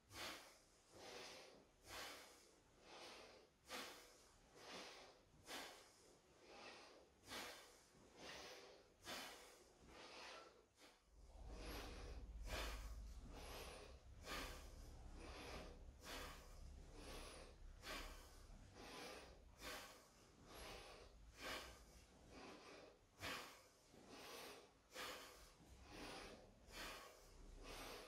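Faint, rhythmic breathing: a short, forceful breath about once a second, paced with each repeated wooden-sword cut. A low rumble joins partway through and runs until near the end.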